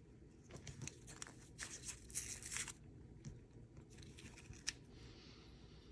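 Paper coin-roll wrapper rustling and tearing softly as it is peeled back to free the next half dollar, loudest about two seconds in, with a few light clicks as the coins are handled.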